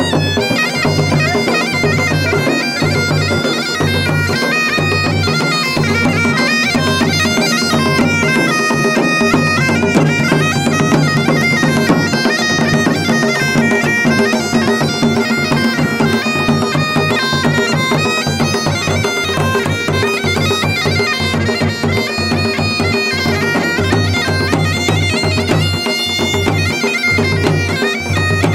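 Masakbeen, the Garhwali bagpipe, playing a folk melody on its chanter over a steady unbroken drone, the tune stepping between held notes.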